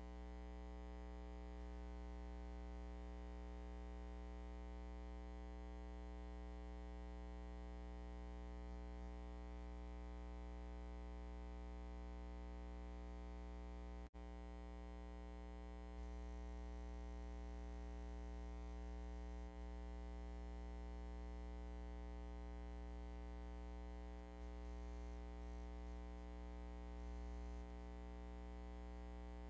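Steady electrical hum with a stack of overtones and nothing else on the track; it drops out for an instant about halfway through.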